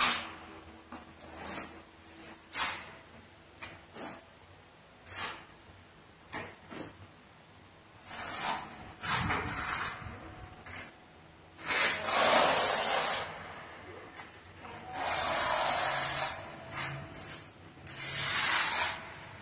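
Trowel scraping and spreading tile mortar across the back of a porcelain tile (back-buttering). The first half has short scrapes, then come several longer strokes of a second or more.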